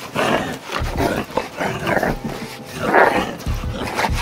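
A man barking and growling like a dog in repeated loud bursts while straining against a chain.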